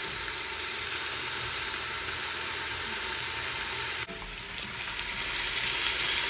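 Pieces of seasoned beef roast searing in hot oil in an Instant Pot's stainless inner pot on sauté: a steady sizzle, briefly cut off about four seconds in before it carries on.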